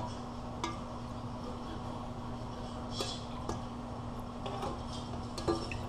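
Metal spoon clinking and scraping against a cooker pan as a roast chicken is basted, a few light clinks spread out over a steady low hum.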